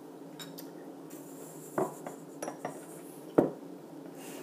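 Clam juice poured from a glass bottle into small glass shot glasses, with several short clinks and knocks of glass on glass and on the table; the loudest knock comes a little over three seconds in.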